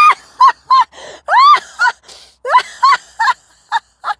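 A woman laughing hard in a run of high, squealing bursts, several rising in pitch, with gasping breaths between them.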